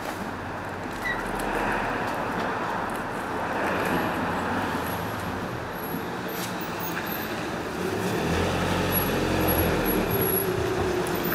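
Steady background road traffic noise, with a vehicle engine hum growing louder from about eight seconds in.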